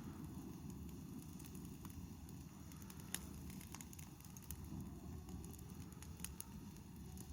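Wood fire burning, with a low steady rumble and scattered sharp crackles and pops, a few at a time.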